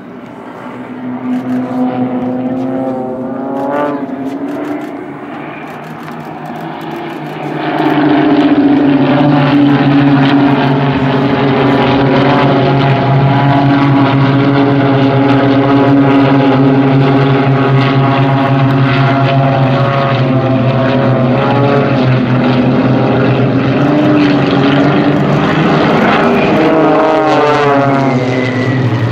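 Four propeller-driven aerobatic planes flying in close formation, their piston engines droning together as several steady tones. The sound grows sharply louder about eight seconds in as the formation comes close overhead. The pitch slides around three seconds in and again near the end as the planes pass.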